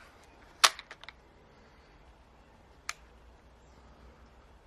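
Sharp mechanical clicks from a pistol-style repeating crossbow being handled: one loud click a little over half a second in, a few lighter clicks just after it, and one more faint click near three seconds.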